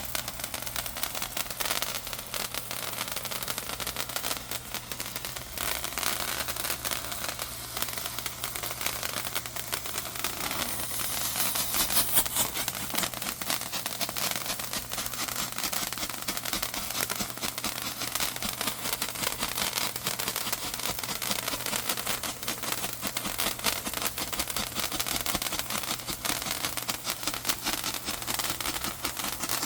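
Daytime fireworks crackling: a dense, continuous stream of small pops and crackles, loudest about twelve seconds in.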